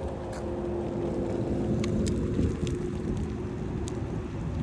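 Wheels rolling over an asphalt path, a steady low rumble, with a steady humming note that fades out about three seconds in and a few faint ticks.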